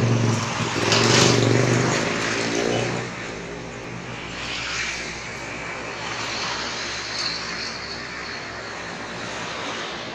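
A truck's deep air horn sounding in a few blasts over the first three seconds, loudest about a second in, over heavy traffic. After that, trucks and other traffic passing by.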